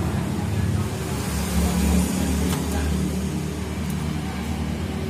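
A steady low engine-like rumble, with a couple of faint light clicks partway through.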